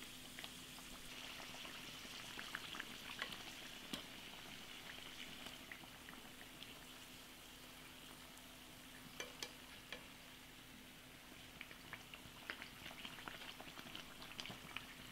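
Aloo kachoris deep-frying in oil over medium heat: a faint, steady sizzle with scattered crackles and light clicks that grow more frequent near the end.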